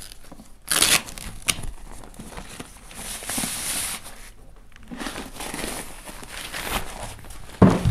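Crinkling and rustling of the white protective wrap around a network router as it is pulled off, with a loud rustle about a second in and longer stretches of rustling in the middle. A sharp thump near the end.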